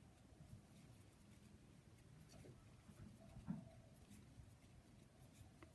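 Near silence with faint rustling and scratching of a crochet hook pulling yarn through stitches, and one soft low bump a little past halfway.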